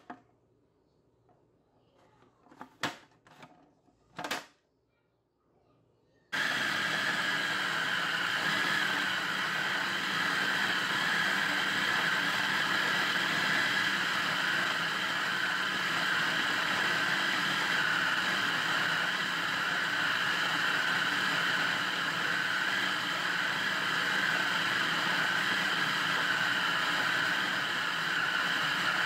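Hamilton Beach food processor grinding almond pieces into almond butter. Two short plastic clicks as the lid is fitted, then about six seconds in the motor starts suddenly and runs steadily.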